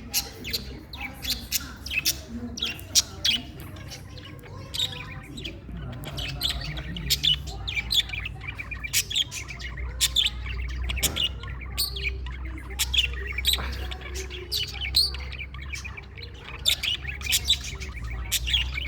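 Pet budgerigars chirping and chattering in quick, short calls one after another, over a low steady hum that grows stronger about halfway through.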